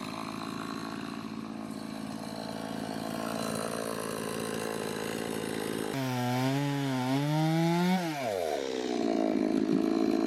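Gasoline chainsaw running as it cuts a log. About six seconds in, its engine note comes through clearly and climbs, then drops sharply near eight seconds as the throttle is let off, and the saw settles into a steadier, lower run.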